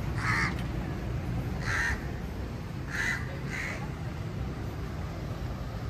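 A crow cawing four short times, the last two close together, over a steady low rumble of street traffic.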